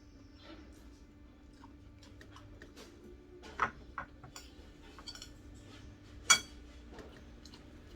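Cutlery clicking and clinking against a plate and bowl while eating, with two louder clinks about three and a half and six seconds in.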